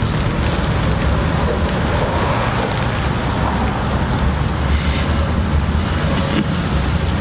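Steady street noise with a low rumble of traffic.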